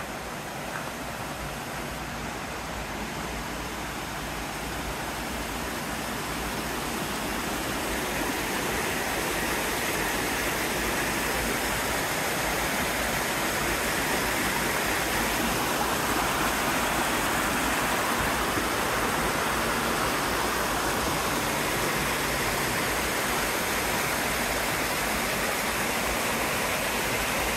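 Rushing water of a small creek cascading over rocks, a steady splashing hiss that grows louder over the first ten seconds or so and then holds.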